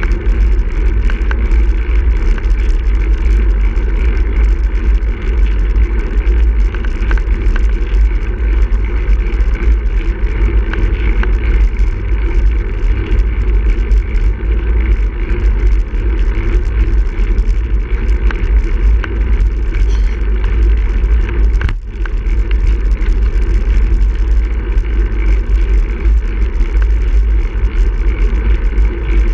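Steady wind rumble on a bicycle-mounted camera's microphone while riding a road bike along an asphalt road, with the hiss of the tyres and the road mixed in. It drops away briefly about three-quarters of the way through.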